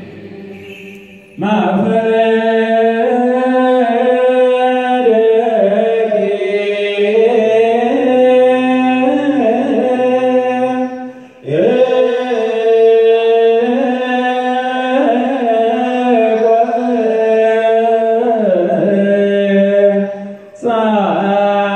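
Ethiopian Orthodox misbak chant, a liturgical psalm verse sung in long, sliding held notes. It begins about a second in and breaks off briefly about halfway through and again near the end.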